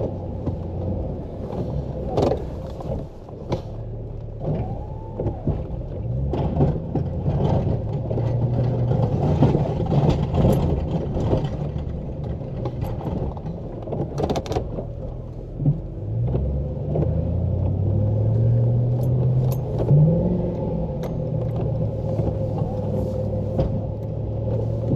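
Pickup truck engine working under load while pushing heavy wet snow with a front-mounted snow plow, revving up and easing off several times, with scattered knocks and rattles from the truck and plow.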